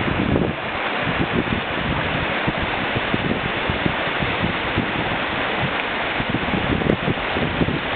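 Whitewater rapids rushing steadily around a standing wave, with gusts of wind buffeting the microphone.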